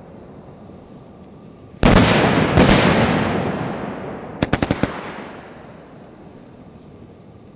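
Pro Set 2 200-gram firework cake firing its shots: two loud bursts under a second apart about two seconds in, each with a long fading rumble. A quick run of five or six sharp pops follows about four and a half seconds in.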